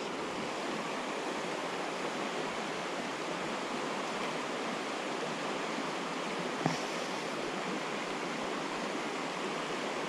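Shallow creek water rushing steadily over stones and riffles, close to the water. A single light knock sounds about two-thirds of the way through.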